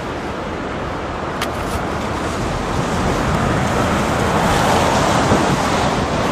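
Storm wind rushing over a phone's microphone: a steady rush of noise that grows a little louder over the second half, with a brief click about a second and a half in.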